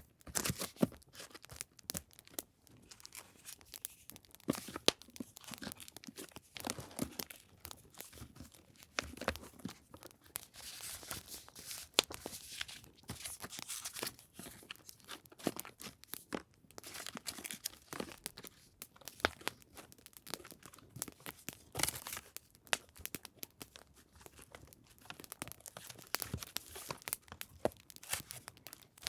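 Paper being handled close to the microphone: rustling, crinkling and tearing, with many small sharp crackles scattered throughout.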